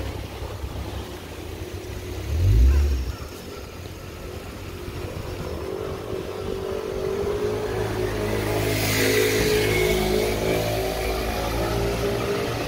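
Isuzu Gemini car's engine and road noise while driving. A single low thump comes about two and a half seconds in. From about six seconds the engine note climbs as the car pulls away, with a hiss from the tyres rising alongside it.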